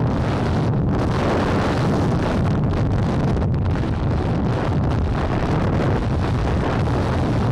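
Steady wind rush buffeting the action camera's microphone while riding a Vespa GTS 300 scooter, with the scooter's engine running underneath.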